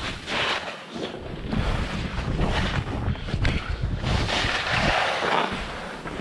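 Skis hissing and scraping through fresh snow, the hiss swelling and fading with each turn, over wind rumbling on the microphone.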